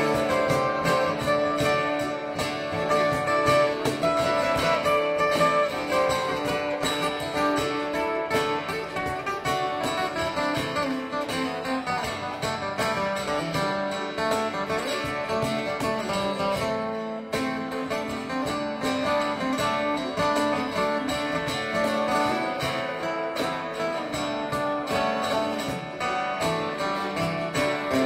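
Small live band playing: strummed acoustic guitars with electric guitar, electric bass and cajon keeping the beat.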